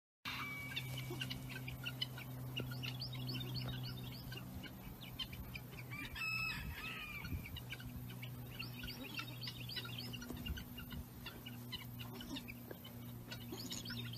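Birds calling in many short, quick chirping and clucking notes over a steady low hum, with one longer call about six seconds in.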